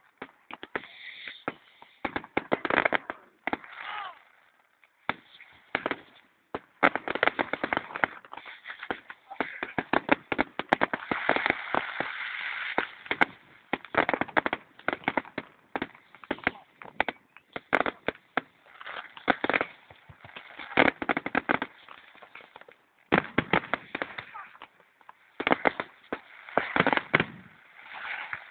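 Fireworks display: a steady run of bangs and crackling shells, with a dense stretch of continuous crackle near the middle.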